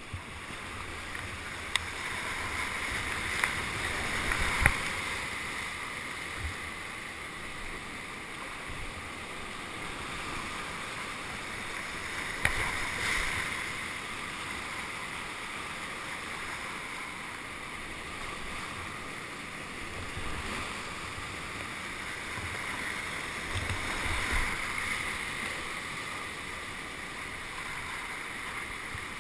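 Rushing river water, a steady noise, with a few sharp knocks near the start and once about halfway through.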